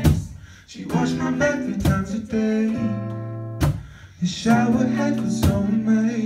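Acoustic guitar strummed in sharp strokes under a woman's singing voice, a live song.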